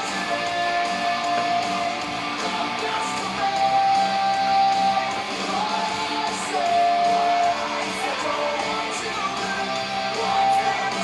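Background music, with a melody of long held notes over a steady accompaniment.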